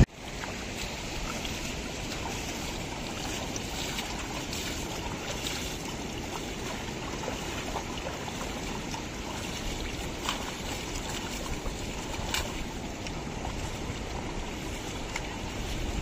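Shallow river water flowing steadily, with a few light splashes as water is scooped by hand onto a motorcycle.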